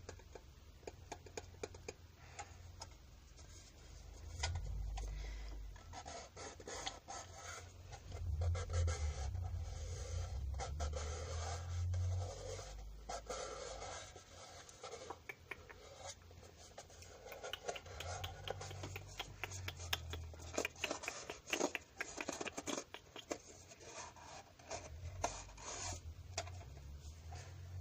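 ASMR scratching and rubbing close to a sensitive microphone: a dense run of small scratchy clicks, with muffled low rumbles from handling now and then.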